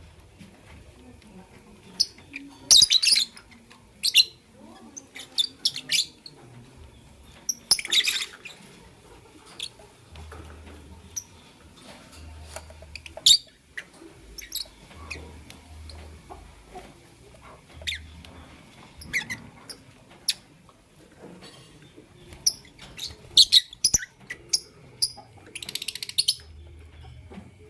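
Lovebirds chirping: short, sharp, high-pitched calls at irregular intervals, with louder bunches about three seconds in, around eight seconds, and again near the end.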